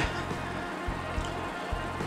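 Background music with a steady low pulse repeating about once a second.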